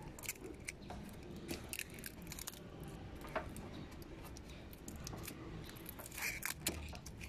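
Irregular light clicks and scrapes of small plastic parts being handled as an LED side turn-signal lamp and its wiring plug are fitted back into a car's front fender.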